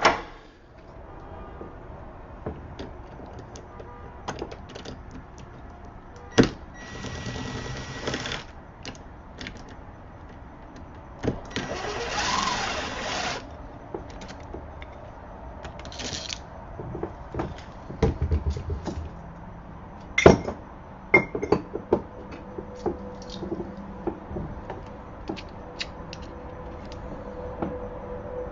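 Scattered clicks and knocks of hand work on a deadbolt lock and its screws, with three short stretches of hiss and a low thud partway through.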